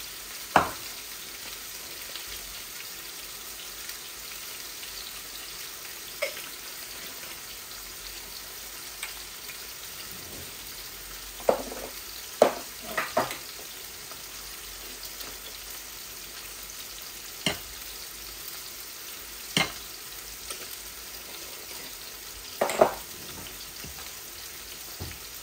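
Rohu fish frying in hot oil: a steady sizzle broken by a sharp spit or pop every few seconds.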